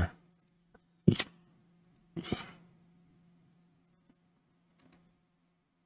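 Computer mouse clicks and a short breath at a desk microphone over a faint steady hum: one sharp click about a second in, a breathy noise around two seconds, and two faint clicks near the end.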